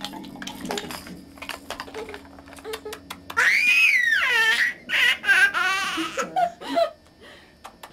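Baby laughing: about three and a half seconds in, a loud high-pitched squeal that rises and falls, then a run of quick pulsing laughs and lower giggles. Before that, only faint clicks.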